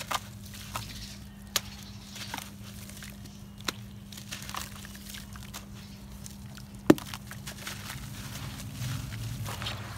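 Dry, gritty cement block crumbled by hand, its fragments pattering and splashing into a basin of water, with a few sharp clicks, the loudest about seven seconds in. A steady low hum runs underneath and fades at about the same point.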